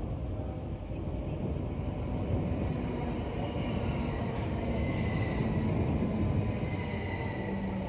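Southern Class 377 electric multiple-unit train running in alongside the platform, its wheels rumbling on the rails and growing louder as it comes level. About halfway through, a thin high whine sets in and slides slowly down in pitch.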